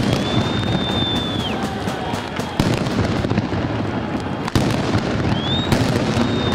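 Noise of a street crowd during clashes, broken by sharp bangs and pops, two of them standing out in the middle and a burst near the end. A long high whistle sounds near the start and again near the end.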